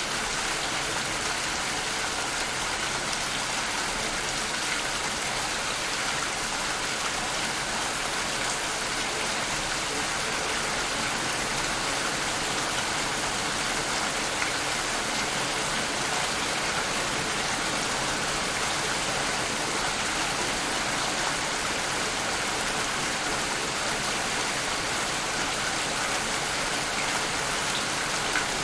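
Steady rain falling, an even hiss of many drops with a few single drops ticking out above it now and then.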